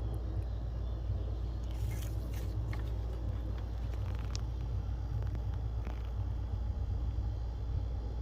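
A 2016 Honda Accord's engine idling steadily with a low, even rumble and a few faint clicks. It is running normally now that the faulty high-pressure fuel pump behind its hard starting has been replaced.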